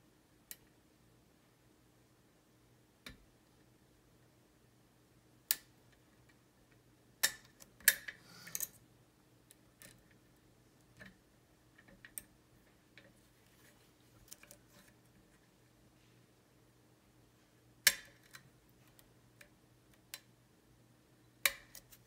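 Scattered sharp metallic clicks and ticks of a steel lock pick working the pins inside a Zeiss Ikon TK5 cylinder as its standard pins are set. The loudest clicks fall about a third of the way in and again about four-fifths of the way through, over a faint steady hum.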